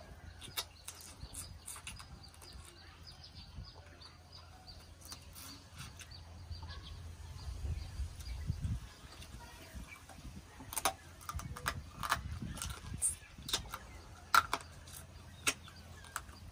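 Close-up eating sounds: chewing and mouth clicks, with a cluster of sharp clicks in the second half, over a steady low hum.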